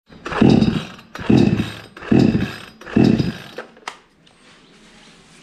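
iBell two-stroke chainsaw being pull-started: four quick pulls on the recoil starter cord about a second apart, the engine turning over with each pull but not catching.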